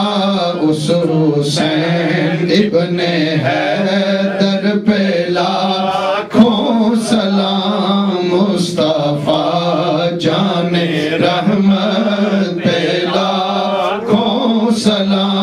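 A man chanting an unaccompanied Urdu devotional salam into a microphone, his voice gliding and holding long notes over a steady low drone.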